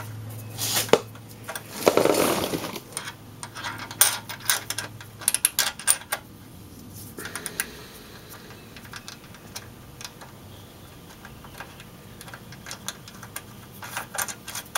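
Small metallic clinks and clicks as a tailpipe clamp and its bolt are handled and fitted around a Volkswagen Beetle's tailpipe, in scattered clusters with a quieter stretch in the middle.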